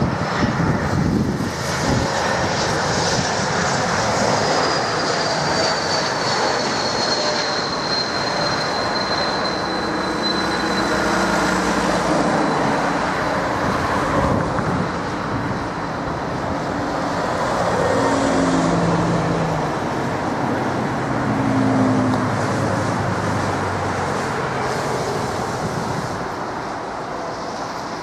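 Swiss Bombardier CSeries airliner on short final passing close overhead: the whine of its Pratt & Whitney geared turbofans falls in pitch as it goes by, over a loud, steady jet roar that carries on afterwards.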